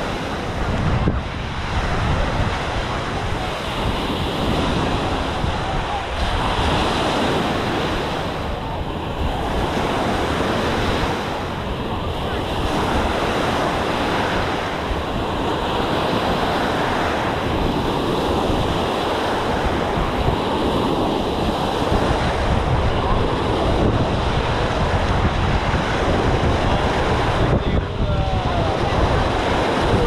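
Small ocean waves breaking and washing up the sand, with steady wind buffeting the microphone.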